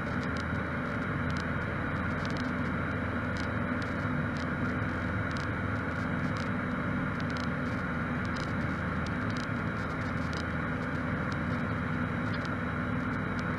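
Steady drone of a Cessna 152 in cruise flight, its four-cylinder Lycoming engine and propeller heard from inside the cabin, even and unchanging.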